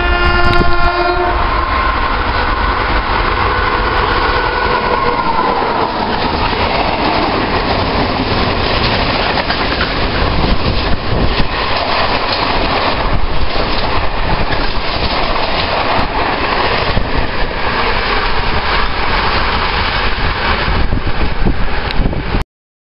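Train horn sounding with several tones at once for about a second. Then the train passes close, a held tone dropping in pitch a few seconds in, and a long rake of covered freight wagons rumbles and clacks over the rails. The sound cuts off abruptly near the end.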